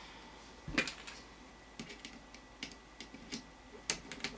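Scattered light clicks and taps of small gun parts being handled, as a bottom plate is fitted onto a GSG-5 lower assembly.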